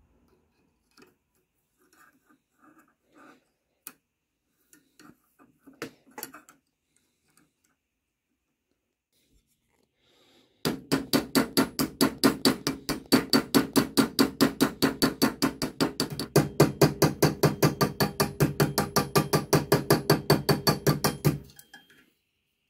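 Small hammer peening over a steel rivet on a Mauser K98 bayonet scabbard's flat retaining spring, held on a bench vise: a fast, even run of sharp metal-on-metal strikes, about five a second, for about ten seconds starting around eleven seconds in. Before that there are only a few faint knocks from handling the parts.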